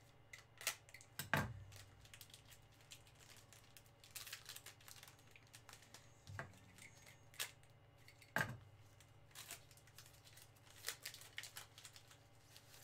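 Quiet crinkling and rustling of a trading-card pack wrapper being opened and handled, broken by a few sharp clicks or taps. The loudest taps come about a second and a half in and again past eight seconds.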